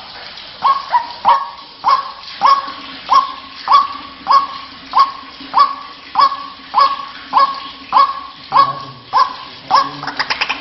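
White-breasted waterhen calling: a loud, regular series of short harsh notes, each dropping in pitch, repeated about every half second and more. This is the ruak-ruak call used as a lure to draw waterhens.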